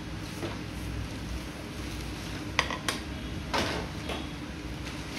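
A few light clicks and knocks as a pedestal fan's white stand pole is handled and set down on a hard tiled floor, two sharp clicks close together a little past halfway and a softer knock just after, over a steady low room hum.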